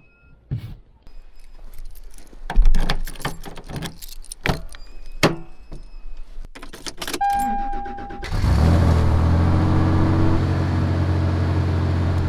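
Keys jangling and a run of clicks and knocks, a brief steady tone, then the pickup truck's engine starts about eight seconds in and settles into a steady idle with a loud rushing hiss over it.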